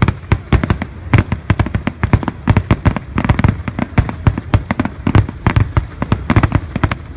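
Aerial fireworks going off in quick succession: a continuous string of sharp bangs and crackles, several a second, with no let-up.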